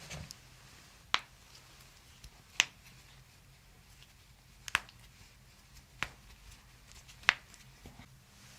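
Five sharp cracking pops, one to two seconds apart, from joints being manipulated during a chiropractic adjustment.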